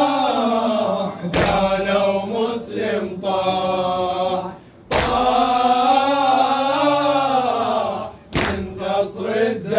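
Male voice chanting a Shia latmiya lament in long, drawn-out melodic phrases that rise and fall, with short breaks between phrases about every three and a half seconds.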